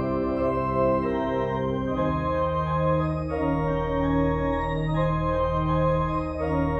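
Organ playing slow, sustained chords over a held bass line, the chord changing every second or so.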